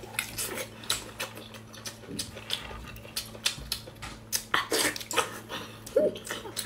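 Wet eating sounds of biting into, sucking on and chewing a whole boiled octopus: a quick irregular run of sharp smacks and clicks from the mouth, with a short hummed "mm" about six seconds in.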